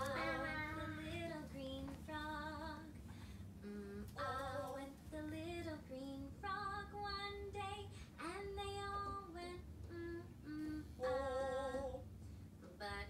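A woman singing a children's song from the television, in short phrases of held, slightly wavering notes.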